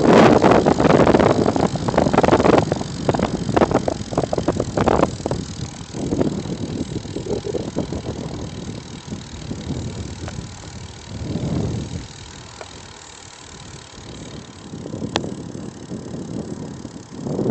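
Wind rushing over the microphone of a phone carried by a cyclist riding a paved road, with road rumble and many short rattling knocks in the first few seconds. The rush eases off by the middle, then swells up again twice.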